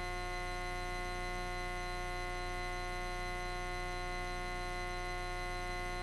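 Steady electrical hum on the aircraft's intercom audio feed, a constant drone of many stacked tones with no change, heard while the voice-activated microphones are closed.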